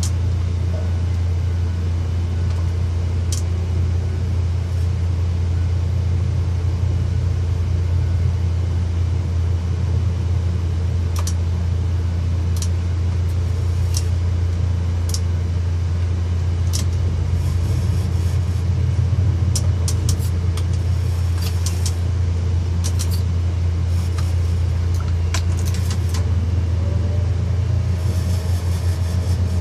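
Tower crane machinery running with a steady low drone, as the trolley and hoist move along the jib. A few faint clicks sound over it.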